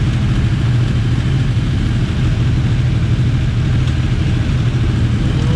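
Suzuki GSX-R1000 K7's inline-four engine running at a steady, unchanging speed, with no revving.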